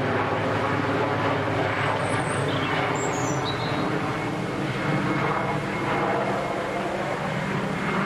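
Large helicopter flying overhead, its rotor and engine sound loud and steady throughout.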